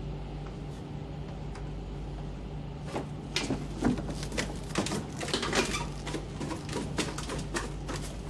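Hurried footsteps and knocks on a ship's ladder and deck, a quick, irregular clatter starting about three seconds in, over a steady low hum.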